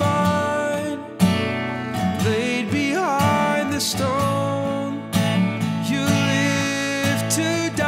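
A man singing a slow worship song in long held notes with vibrato, accompanied by strummed acoustic guitar.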